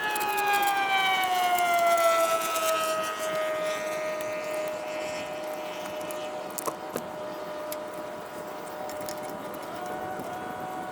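A loud siren-like whine that slides down in pitch over the first few seconds, then holds steady, with a few faint ticks and knocks now and then.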